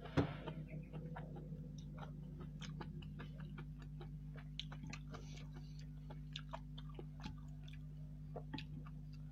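Close-up mouth sounds of someone eating chicken noodles and meatballs: irregular wet chewing clicks and smacks, with one sharp knock just after the start, over a steady low hum.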